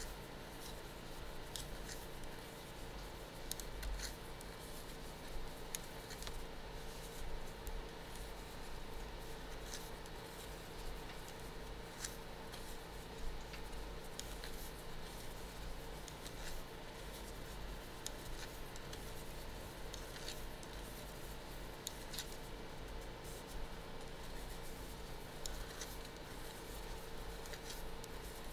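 Circular knitting needles clicking and tapping together at irregular intervals as stitches are purled, with cotton yarn being handled, over a faint steady hum.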